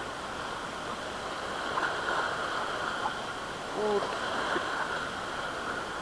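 Shallow surf washing and fizzing over a rocky reef flat, a steady hiss of water, with one short falling voice sound from the angler about four seconds in.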